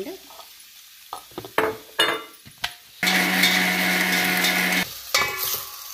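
A few knocks and clicks, then an electric mixer grinder runs for about two seconds and stops, grinding grated coconut and dried red chillies with water into a paste for a masala.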